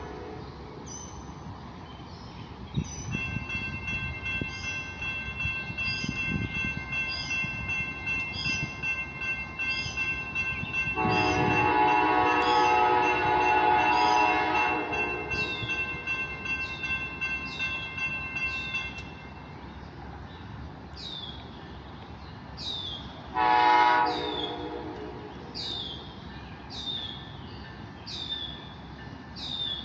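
Air horn of an approaching Amtrak GE P42DC locomotive, unseen around the bend, sounding one long blast of about four seconds and later a short one, a chord of several tones. A high chirp repeats about once a second throughout, with a faint steady tone in between.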